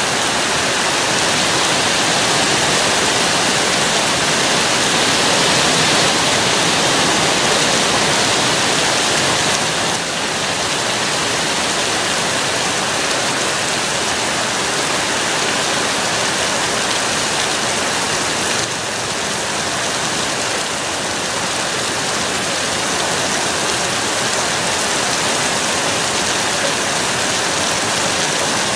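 Heavy thunderstorm rain pouring steadily, dipping slightly in loudness twice.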